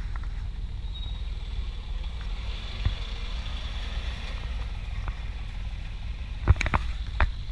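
Alfa Romeo Giulia's engine running low and steady through its quad exhaust as the car creeps along at walking pace, with two sharp cracks near the end.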